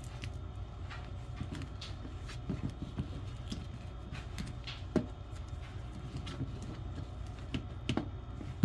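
Hands rolling a flour tortilla burrito on a plastic cutting tray: soft rubbing and pressing with a few light taps and knocks, the clearest about five seconds in, over a steady low hum.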